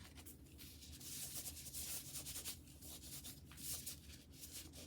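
Faint rubbing and scratchy scraping as pink slime is pressed and shaped into a heart by hand.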